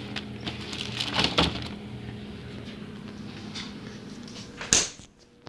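Kitchen items handled and rummaged with scattered clicks over a steady low hum, then a door shut with one sharp knock near the end, after which the sound drops away suddenly.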